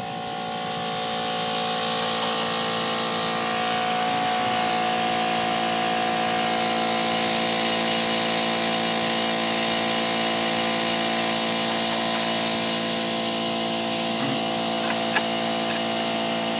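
Central Pneumatic portable air compressor running steadily as it fills a red portable air tank, a constant motor hum with a high whine on top.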